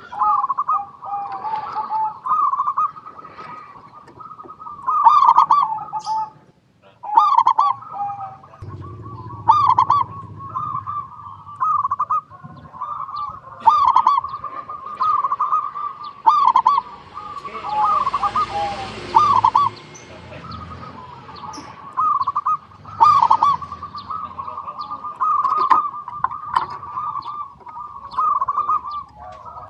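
Zebra doves (perkutut) cooing in a steady run of short, looping staccato notes, several phrases following one another with hardly a pause. A brief rushing noise comes in about eighteen seconds in.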